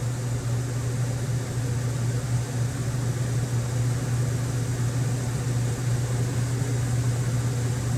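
Steady low machine hum with an even hiss behind it.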